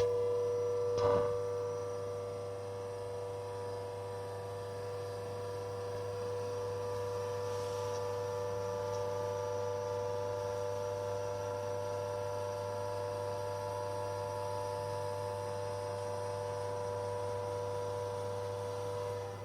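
Haas CNC mill running steadily as it cuts, a constant whine with several overtones over a low hum, with a single click about a second in.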